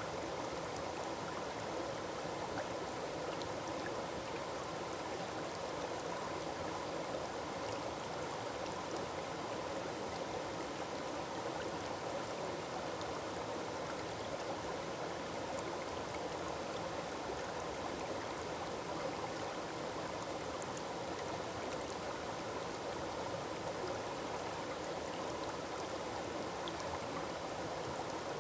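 Small forest waterfall: water falling and rushing over rocks in a steady, unbroken splashing rush.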